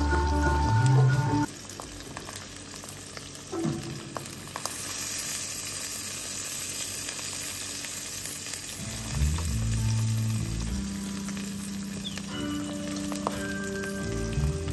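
Eggs frying in oil in a nonstick pan: a steady sizzle that grows brighter about five seconds in. Background music plays at the start, cuts off after about a second and a half, and comes back about nine seconds in.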